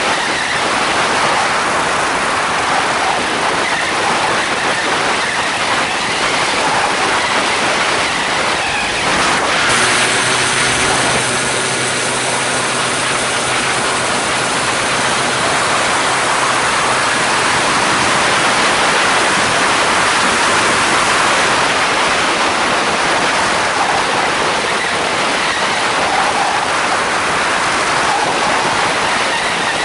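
Heavy wind rush on the microphone of a homemade microlight trike in flight, over the running of its Polini Thor 250 single-cylinder two-stroke engine and pusher propeller. From about ten seconds in, the engine's steady hum comes through more clearly for several seconds.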